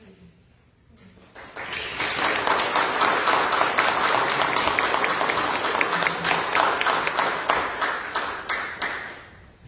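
Congregation applauding, starting about a second and a half in and dying away near the end.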